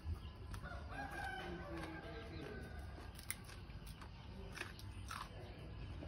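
A rooster crows once, a long call about a second in. A few short sharp clicks follow later.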